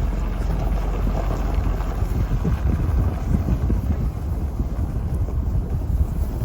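Low, steady rumble of a vehicle driving, with wind buffeting the microphone.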